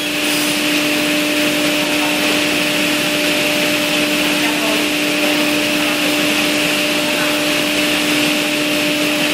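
CNC wood panel saw running steadily: a constant hum with a higher whine over a loud hiss, unchanging throughout.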